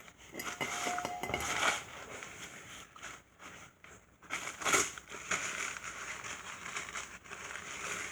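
Crinkling, rustling handling noise in two spells, with a brief louder crunch about halfway through.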